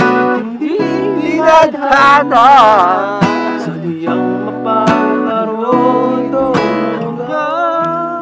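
Cutaway acoustic guitar played in chords with strums, and a voice singing along, holding wavering notes about two seconds in and again near the end.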